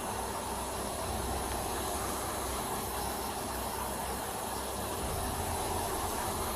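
Steady hiss over a low hum: background road and vehicle noise, heard through a body-worn camera's microphone.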